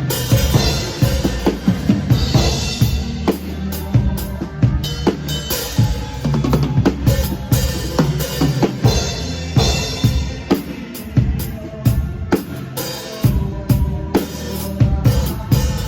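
Live band music with a drum kit playing a steady beat, bass drum and snare strikes, over low held bass notes.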